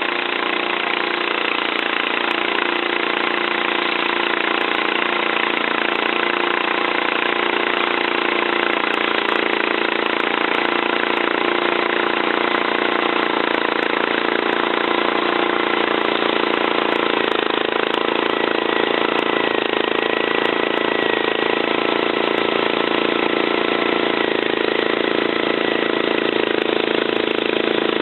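Wheel Horse garden tractor's modified Kohler K301 12 hp single-cylinder engine, with milled head, performance camshaft, ported block and custom exhaust, running steadily. About seventeen seconds in its note shifts slightly and a faint high whine joins it.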